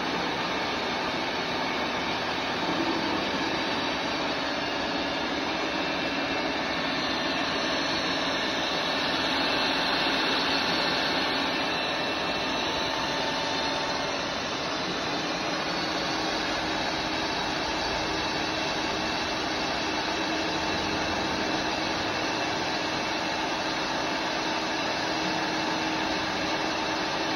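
CNC bridge-type machining centre running through a hole-machining cycle: a steady whir of spindle and cutting noise with faint steady tones.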